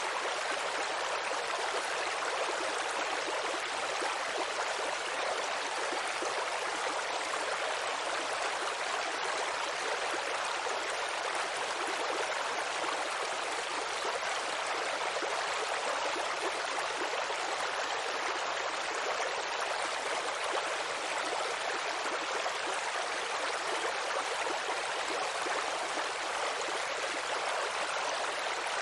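Steady rainfall, an even continuous hiss of falling rain without breaks or single drops standing out.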